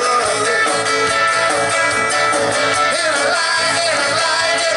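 Rock and roll band playing live and loud, with a man singing lead into a microphone over amplified guitar.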